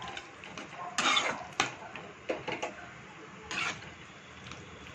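Metal spatula scraping and knocking against a pan as chunks of cooked vegetable are stirred: four or so separate strokes, the loudest about a second in.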